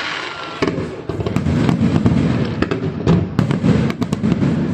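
Fireworks going off: a rapid string of sharp bangs and crackles over a low rumble, growing denser from about a second and a half in, with the tail of a faint whistle at the start.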